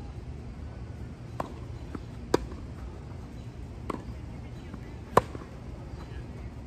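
Tennis ball struck back and forth by rackets in a baseline rally: a series of sharp pops, the two loudest about two and five seconds in, with fainter ones between.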